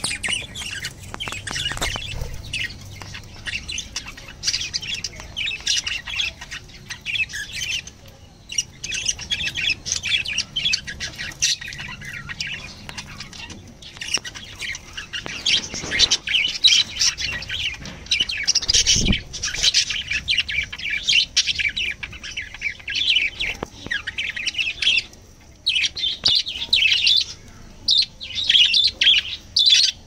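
Several budgerigars (budgies) chirping and chattering continuously, with many high calls overlapping in a busy warble and brief lulls twice.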